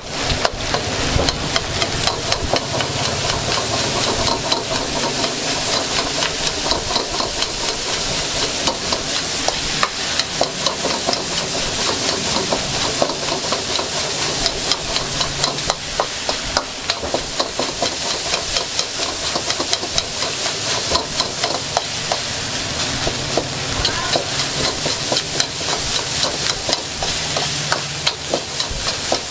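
Fried rice sizzling in a hot wok while a cooking utensil scrapes and knocks against the pan in a rapid, irregular clatter of many strokes a second.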